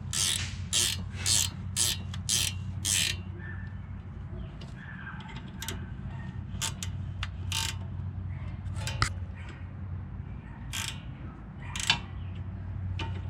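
Hand tools working the brake caliper bolts: a run of about six quick metallic rasping strokes in the first three seconds, then scattered clicks and taps of metal on metal. A steady low hum runs underneath.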